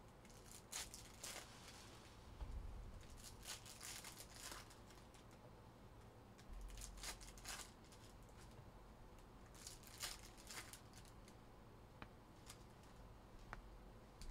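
Faint, scattered crinkling and rustling of trading-card packaging and cards being handled, in short separate bursts with a few light clicks.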